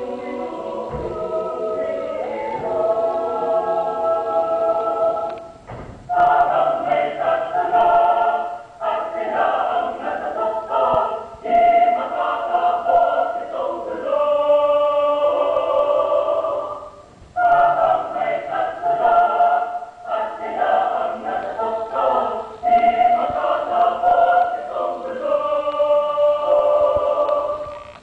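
Mixed choir singing a Filipino choral arrangement, in full-voiced phrases broken by brief pauses.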